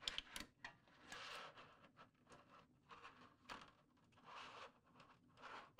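Faint handling noise of a cover being slid onto a fibre-optic patching tray: a few light clicks near the start, then several soft, short sliding swishes.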